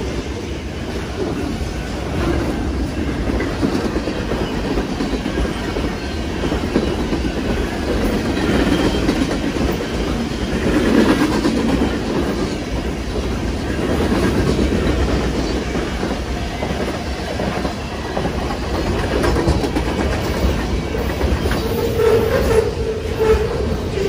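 Freight train cars rolling past at close range: steel wheels rumbling and clacking steadily over the rail joints and the crossing. A brief tone joins near the end.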